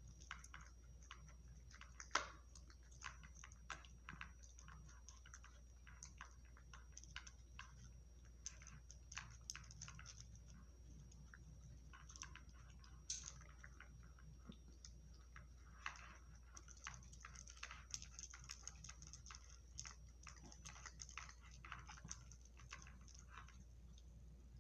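A dog eating from a plastic bowl: faint, irregular clicks and crunches of chewing.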